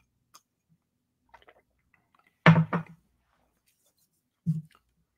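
A man's mouth and throat sounds after a sip from a glass: faint swallowing and mouth clicks, then a short two-part wordless vocal sound about halfway through and a single one near the end.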